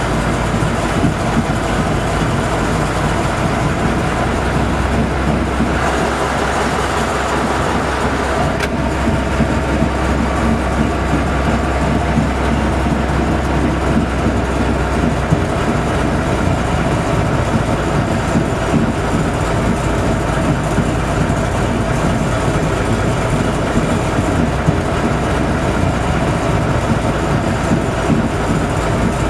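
TU2 narrow-gauge diesel locomotive's V12 engine running steadily under way, with the wheels of the locomotive and open wagons rolling on the rails.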